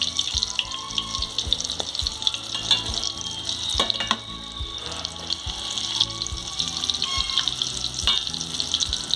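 Egg-battered stuffed chiles frying in hot oil in a stainless steel pan, a steady crackling sizzle. A metal spatula knocks against the pan a couple of times, near the middle and near the end.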